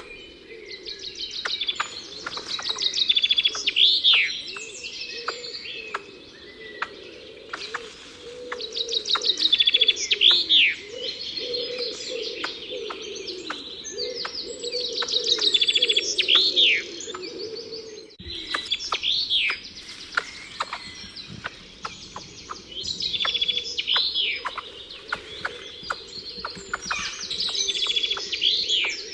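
A chorus of songbirds chirping and singing, with repeated trills and swooping whistled notes, over a lower warbling layer that resembles dove cooing. The song breaks off briefly about two-thirds of the way through, then resumes.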